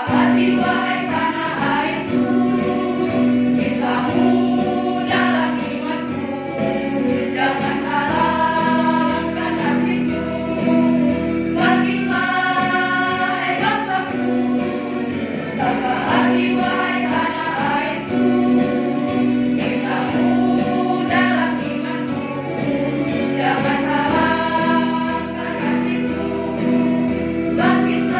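Girls' choir singing together over a steady instrumental accompaniment.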